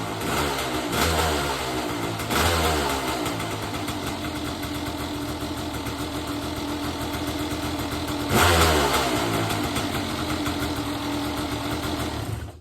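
Kawasaki KX500 two-stroke single-cylinder dirt bike engine idling, blipped three times: sharp revs about a second in, about two and a half seconds in, and about eight seconds in, each falling quickly back to idle.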